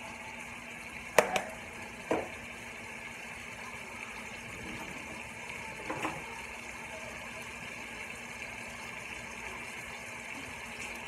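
Seasoned steak frying in olive oil in a large pan, a steady soft sizzle. A few sharp knocks and clinks sound over it about a second and two seconds in, and again around six seconds in.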